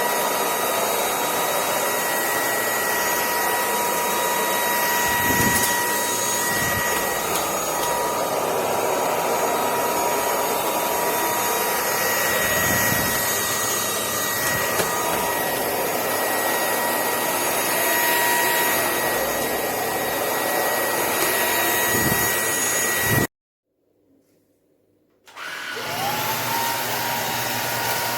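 Cordless stick vacuum cleaner running steadily: a motor whine with several high tones over rushing air, with a few short low thumps. About 23 seconds in it cuts off abruptly; about two seconds later it starts again, its whine rising as the motor spins up.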